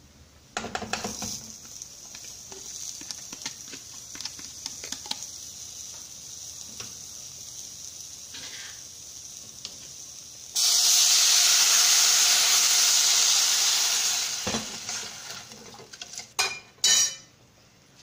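Beef steaks frying in oil in a stainless-steel pan, a steady crackling sizzle. About ten seconds in, a much louder hiss of sizzling bursts up and dies away over about four seconds. Pots and utensils clatter at the start and knock a couple of times near the end.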